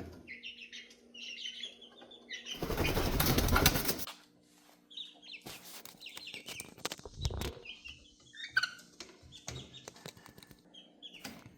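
Young chickens peeping in short high calls, with a burst of wing flapping for over a second about three seconds in. A faint steady hum runs underneath.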